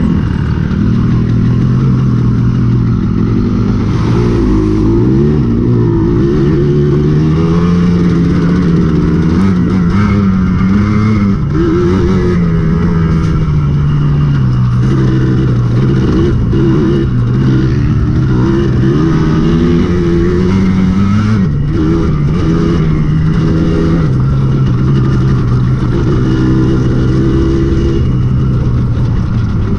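Dirt bike engine running under way, its pitch rising and falling in steps as the rider works the throttle and changes gear.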